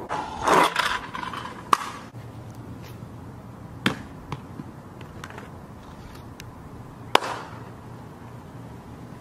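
A brief rushing swish about half a second in, as the camera is swung down over the roof edge. Then a few isolated sharp knocks and clicks, spread apart, with one near the end among the loudest.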